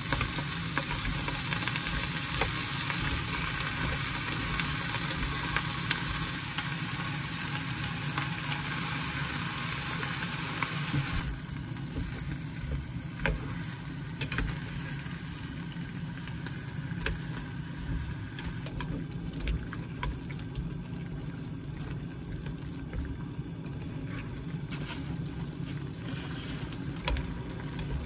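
Sausages and chopped vegetables sizzling in a frying pan as they are stirred with chopsticks. The sizzle drops sharply about eleven seconds in, leaving quieter stirring with occasional light clicks against the pan over a steady low hum.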